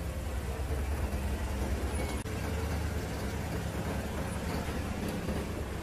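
Industrial mattress sewing machine running steadily, a continuous low mechanical hum.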